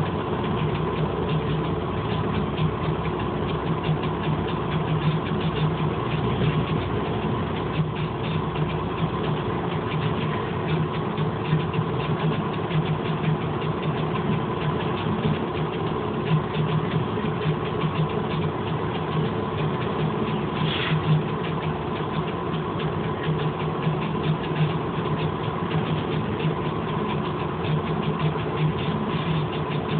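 Diesel locomotive engine idling steadily with a fast, even pulse. A short high squeak sounds about two-thirds of the way through.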